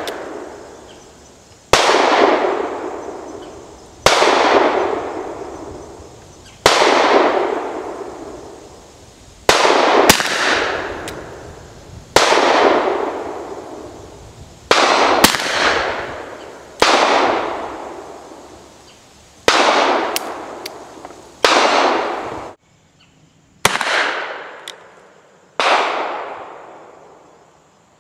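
Webley Mk VI revolver, its cylinder shaved for .45 ACP, firing .45 Auto Rim handloads of 7.0 grains of Blue Dot under 255-grain lead semi-wadcutters. The shots come slowly, one every two to three seconds, each followed by an echo that dies away over about two seconds.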